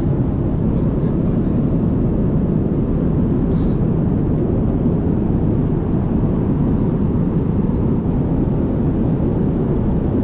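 Steady in-flight airliner cabin noise: the low, even rush of the engines and airflow heard from inside the passenger cabin.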